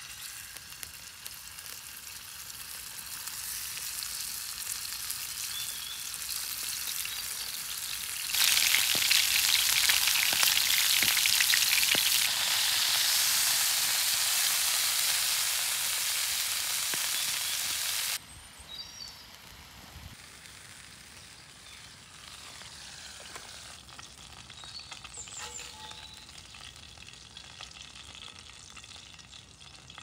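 Beef steaks sizzling in hot oil in a cast-iron pan over a campfire. The sizzle builds as the meat goes in, is loudest for about ten seconds in the middle, then drops off suddenly to a much fainter hiss.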